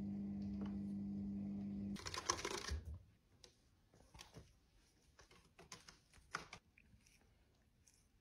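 Electric pump of a Cat Mate pet drinking fountain humming steadily, cutting off about two seconds in. A brief scratchy rustle follows, then scattered light clicks and scratches of a kitten's claws gripping a sisal-rope scratching post as it climbs.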